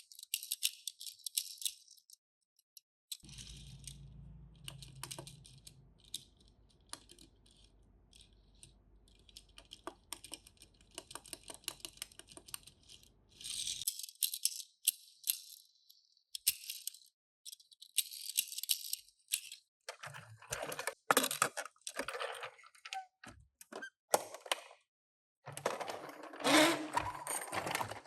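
Small die-cast toy cars and their plastic and cardboard packaging being handled: rattling, clicking and rustling in irregular bursts, busiest and loudest in the last third.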